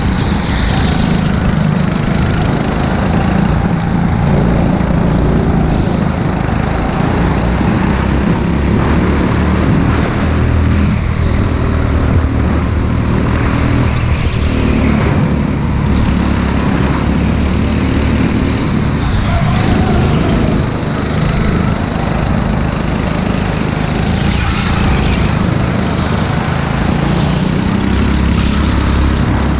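Go-kart engine running steadily, heard from a camera mounted on the kart, with rattle and rumble from the kart's vibration on the microphone.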